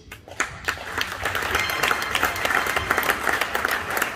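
Crowd applauding: a few scattered claps that swell within about a second into steady clapping.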